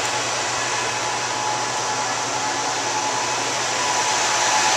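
Server cooling fans running in a rack room: a steady rushing noise with a thin whine, growing a little louder near the end.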